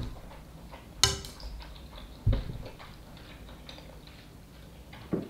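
Close-up eating sounds of instant ramen: noodles slurped from chopsticks, then chewing with small wet mouth clicks. Three short, louder slurps or sniffs stand out about a second in, just after two seconds and near the end.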